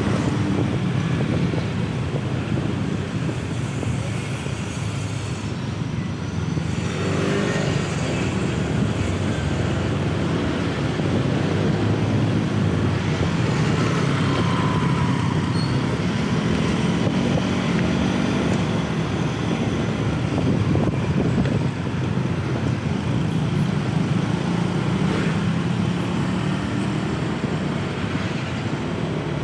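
Motor scooter running steadily at riding speed in town traffic, its engine hum mixed with road and wind noise, with a swell of noise about a quarter of the way in as other traffic goes by.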